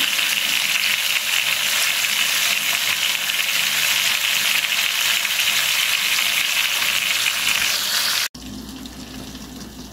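Flour-dredged flounder fillets frying in hot oil in a frying pan, a steady sizzle that cuts off abruptly about eight seconds in.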